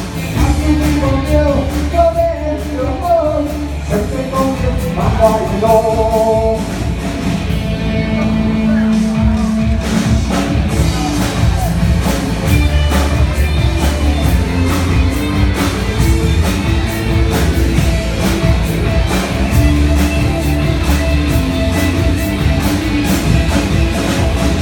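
Live band playing a rock-style pop medley with a steady beat, a melody line carried over it.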